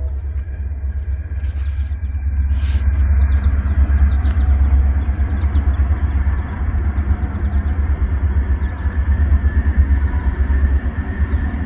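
Norfolk Southern freight train's diesel locomotives approaching, a deep, steady rumble that grows louder over the first few seconds.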